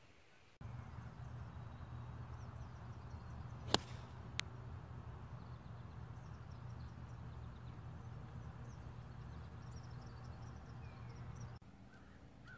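A golf club strikes the ball on a tee shot: one sharp crack nearly four seconds in, then a fainter click about half a second later. Birds chirp faintly over a steady low rumble.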